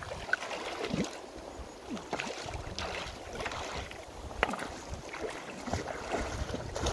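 Shallow stream water splashing and sloshing in short, irregular bursts as a person wades and reaches into it, with a couple of sharper splashes.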